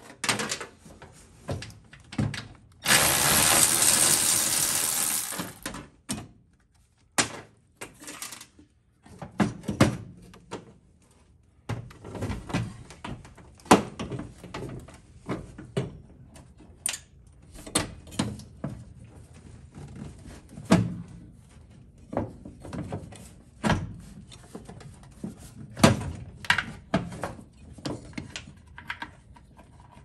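A cordless electric ratchet runs for about three seconds near the start, spinning out a pedal-assembly mounting bolt. After that come many short metal clunks and knocks as the steel Volkswagen Type 3 pedal assembly is worked loose by hand.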